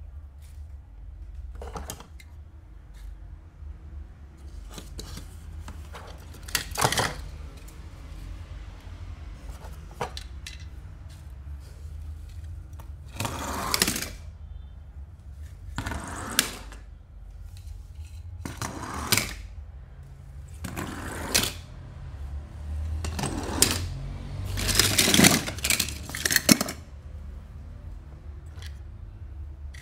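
Toy cars being unboxed by hand: plastic and cardboard packaging rustling and crinkling in a series of short bursts, with scattered small clicks, the busiest and loudest stretch coming in the last third.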